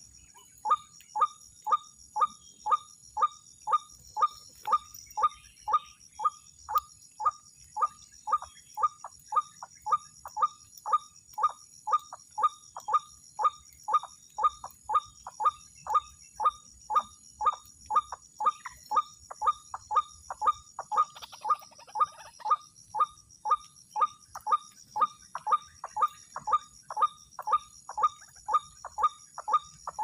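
White-breasted waterhen (ruak-ruak) calling, one short falling call repeated very evenly about twice a second without a break.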